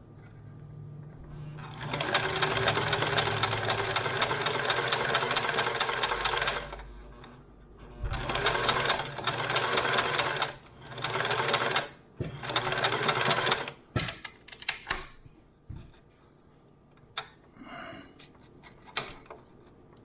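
Sewing machine stitching in runs: one long run of about four seconds, then four shorter bursts, each with a fast, even needle rhythm. A few light clicks and handling noises follow near the end.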